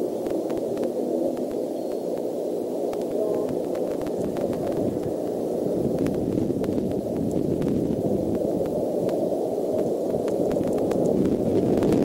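Steady low rushing noise picked up by the eagle nest camera's outdoor microphone, with faint scattered clicks, growing slightly louder toward the end.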